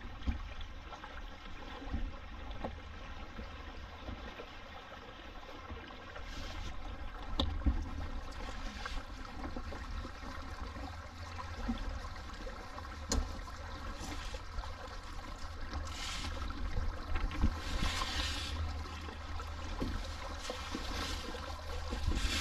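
Water rushing and hissing along a sailboat's hull under sail, over a steady low rumble, with louder swishes of water several times in the second half.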